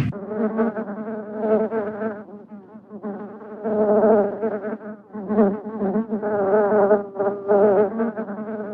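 Fly-like buzzing that wavers in pitch and comes and goes in several stretches, with short breaks between them.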